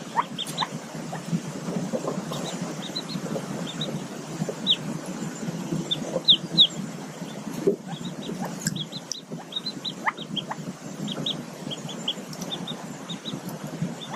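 Newly hatched mallard ducklings peeping from the nest under the hen: many short, high peeps in quick runs throughout, some sliding in pitch, over steady low background noise.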